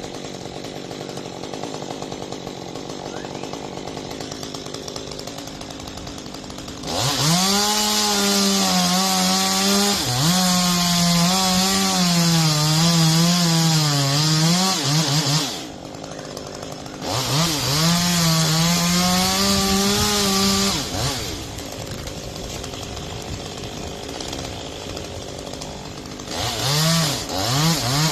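Two-stroke chainsaw idling, then run at full throttle twice for several seconds each, its pitch sagging and wavering under load as it cuts into a palm tree. It drops back to idle, then is blipped a few times near the end.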